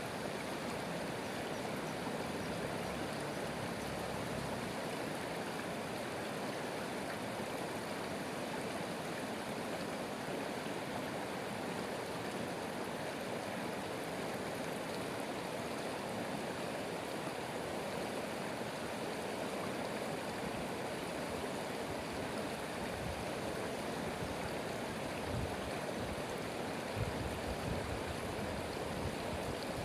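A stream running steadily, a continuous rush of flowing water, with a few deeper gurgles near the end.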